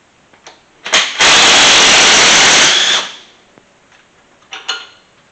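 Cordless impact driver hammering on a bolt for about two seconds, running it out during engine teardown, followed by a few light metallic clinks.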